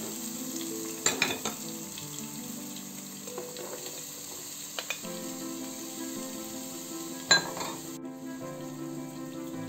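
Diced onion and garlic sizzling gently in olive oil in a pot, with a few sharp knocks of a utensil and chopping board against the pot as chopped green pepper is tipped in. Soft background music with sustained chords plays underneath.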